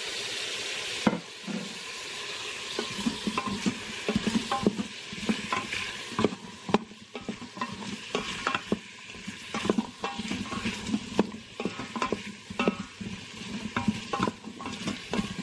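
Carrot and potato chunks sizzling in hot oil in an Instant Pot's stainless steel inner pot on the sauté setting, stirred with a wooden spoon that knocks and scrapes against the pot. The sizzle is loudest in the first second.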